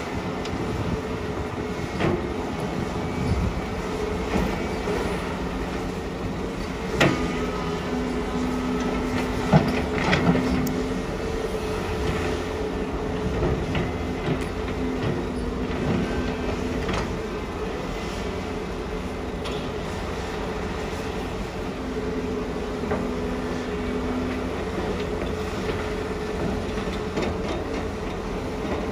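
Heavy diesel engines of excavators and dump trucks running steadily, with a droning hum that swells and fades and a few sharp knocks and clunks, the loudest about 7 and 10 seconds in.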